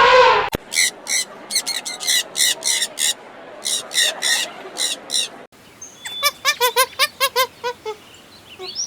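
Bird calls in two short clips. First a series of short, high chirps about two a second. Then, after an abrupt cut, a quicker run of chirping calls, about five a second, trailing off into fainter calls.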